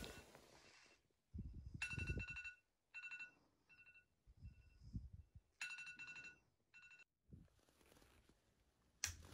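A phone alarm going off faintly: a short pattern of high electronic beeps, played twice about four seconds apart, with low rustling between.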